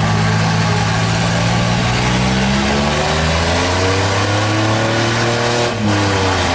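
1990s GMC full-size pickup doing a burnout: the engine is held at high revs while the rear tyres spin and smoke, with a steady hiss underneath. The engine pitch climbs slowly over a few seconds, drops briefly near the end, then settles back to a lower note.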